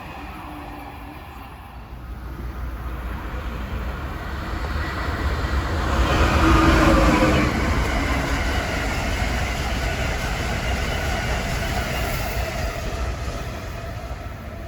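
Passenger train passing at speed, rising to its loudest about six seconds in with a falling pitch as it goes by, then a steady rumble of cars running past before it begins to fade near the end.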